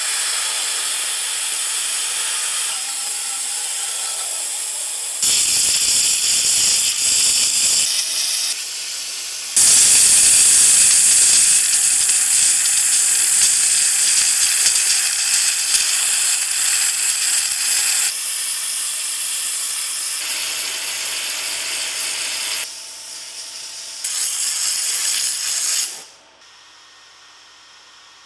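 Waterjet cutter's high-pressure water jet hissing steadily as it cuts through thick off-road truck tire tread, stepping louder and softer several times. The hiss stops near the end.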